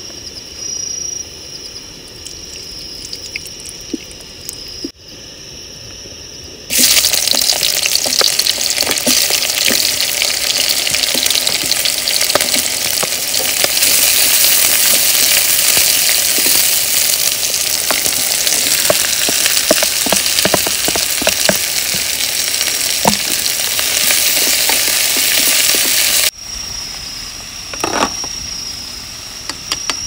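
Chopped vegetables frying in hot oil in a kadhai: a loud, even sizzle with small clicks of stirring. It starts suddenly about seven seconds in and cuts off a few seconds before the end. Before and after the sizzle, crickets chirp steadily.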